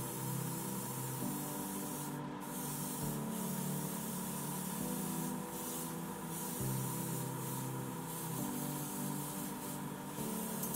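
Airbrush spraying paint, a steady hiss that stops briefly about five times as the trigger is let off. Soft background music with held chords runs underneath.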